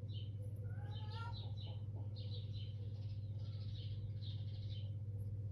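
Small birds chirping in short, repeated calls over a steady low electrical hum.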